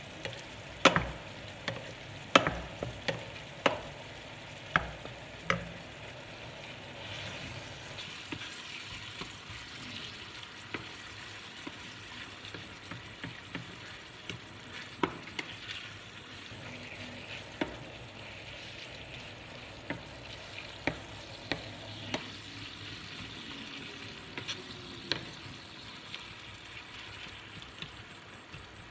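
Ground meat sizzling as it browns in a pan, with a wooden spoon stirring and scraping it. The spoon knocks sharply against the pan many times in the first few seconds, then only now and then.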